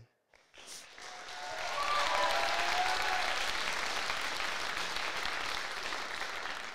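Audience applauding, swelling over the first couple of seconds and dying away near the end.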